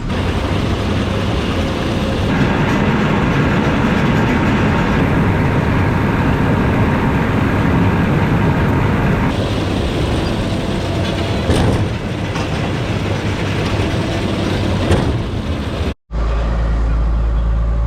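Tractor engine running with a John Deere round baler working behind it while baling straw, a steady mechanical rattle over the engine hum. Near the end it cuts abruptly to a deeper, steady engine drone.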